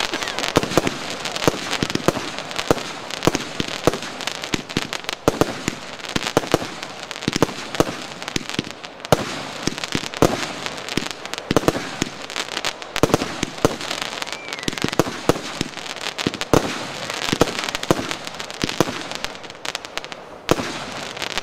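A 200-gram consumer firework cake firing shot after shot. Its tubes launch one after another and the shells burst overhead, the reports coming in quick succession. The firing stops about a second before the end.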